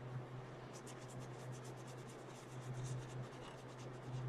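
Quick back-and-forth rubbing strokes as old, hardened thermal paste is wiped off a Pentium 4 processor with alcohol, over a steady low hum from fans.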